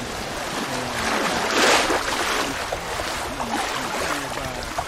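Water rushing steadily along the hulls of a Leopard 48 sailing catamaran under way, with a louder splash of a passing wave about a second and a half in.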